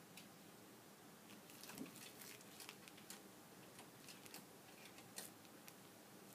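Faint, irregular clicks and taps of an Abyssinian cat's claws and paws against a TV screen's edge as it stands up and paws at the picture, the sharpest tap about five seconds in.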